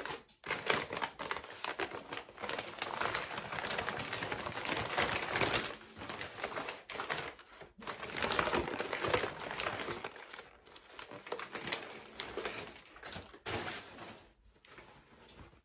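Packing material being crinkled and pulled away as a wrapped crystal is unwrapped by hand: a dense, continuous rustling and crinkling that eases off near the end.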